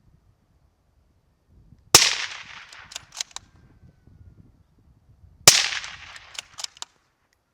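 Two suppressed rifle shots from a 6.5 Creedmoor fitted with a Thunder Beast 30P-1 suppressor, about three and a half seconds apart. Each is a sharp crack that dies away over about a second, with a few short echoing ticks after it.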